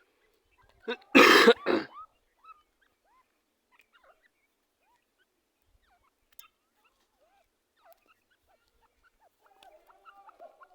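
Male teetar (francolin) calling: one loud, harsh call about a second in, lasting about a second, then scattered faint chirps, and near the end the start of a fast run of rhythmic call notes.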